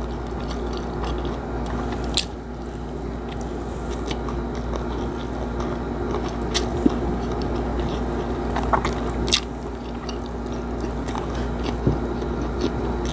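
A person chewing a mouthful of food close to the microphone: wet mouth and chewing sounds with many scattered short, sharp clicks.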